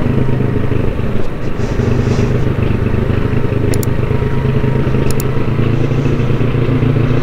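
Single-cylinder engine of an Italika FT motorcycle running at low, steady revs while riding down a steep descent. Two brief faint clicks come through midway.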